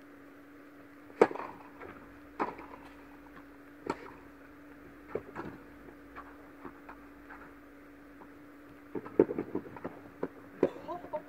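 Tennis rally: a serve struck hard about a second in, then the ball hit back and forth by rackets about every second and a half, alternately loud and fainter. Quick footsteps and shoe scuffs on the court near the end, over a steady low hum.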